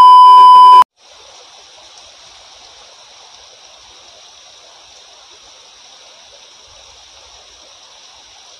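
A loud, steady test-tone beep, under a second long, with the channel logo. Then a shallow stream runs over rocks in a steady, much quieter rush of water.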